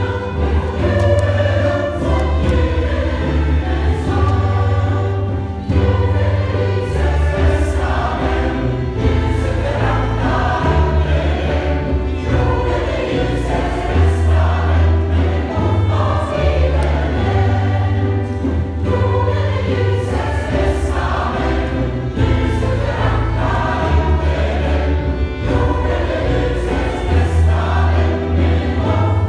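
Church choir singing a hymn, the voices ringing in the church, over low held bass notes that change every couple of seconds.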